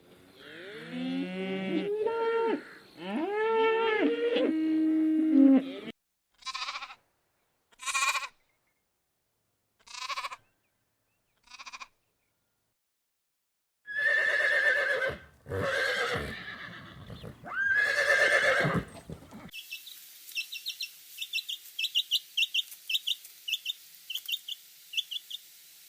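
A sequence of farm animal calls: several drawn-out, pitch-bending calls in the first six seconds, then four short calls about two seconds apart, then three louder calls. From about twenty seconds in, rapid high chirping repeats many times.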